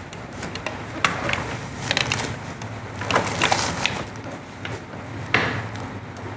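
Sharp clacks and cracks from a chiropractic drop-table adjustment. They come as a single click about a second in, a cluster around two seconds, a quicker run of them between three and four seconds, and one last loud crack a little past five seconds.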